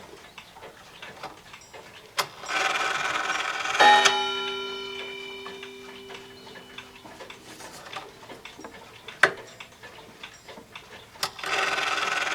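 The striking train of a spring-driven Waltham 31-day wall clock runs with a short whir. Its hammer then hits the gong once, and the note rings and dies away over about three seconds. After a couple of clicks the train whirs again near the end.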